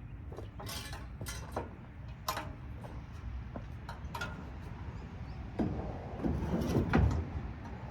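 Scattered clicks, knocks and scrapes of tools on metal parts as an air-conditioning unit is taken apart for scrap, with a louder run of knocks and rattles about six to seven seconds in.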